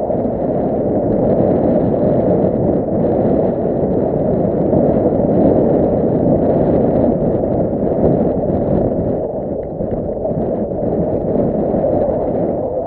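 Bass boat on the water: a steady hum from its bow-mounted electric trolling motor, with wind on the microphone and water noise against the hull.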